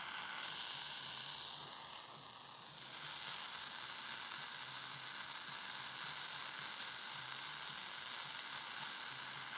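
Shortwave receiver tuned to 14261 kHz giving out steady static hiss with no station transmitting on the channel. The hiss dips a little about two seconds in.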